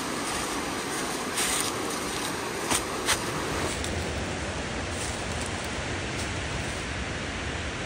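Steady rush of river rapids, with a few short sharp clicks between about one and a half and three seconds in. Just under four seconds in the sound changes at a cut, and a steady rushing noise carries on with a little more low rumble.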